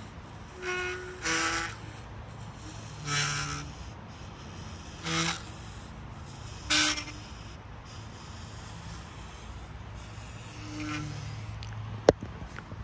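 Rotting cedar wood played as a daxophone-like friction instrument, giving about six short pitched squawks, each under half a second, spaced unevenly. A couple of sharp clicks come near the end.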